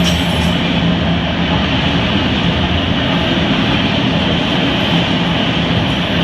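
CSX freight train's enclosed autorack cars rolling past: a loud, steady rumble and rush of steel wheels on the rails.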